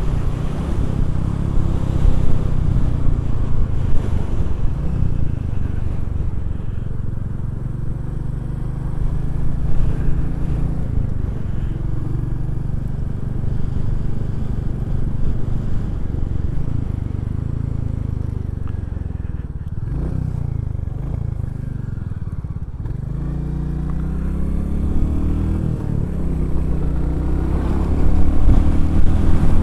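Motorcycle engine running at road speed, with wind and road noise, heard from the rider's position. About two-thirds of the way in the engine note drops as the bike slows, then rises in steps as it accelerates through the gears.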